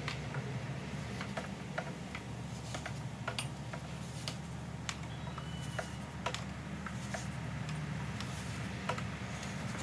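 Irregular light clicks and rattles of braided stainless steel sleeving being pushed and worked by hand along a rubber coolant hose, over a steady low hum.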